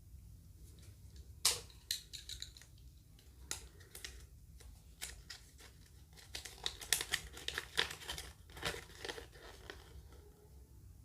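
Kinder Joy egg packaging being handled: plastic wrapping crinkling and tearing, with many sharp clicks of plastic pieces, busiest from about six to nine seconds in.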